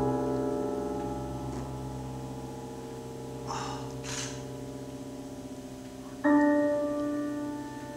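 Music of deep, bell-like struck tones: one rings on and slowly dies away, and a second, higher tone is struck about six seconds in and also begins to fade.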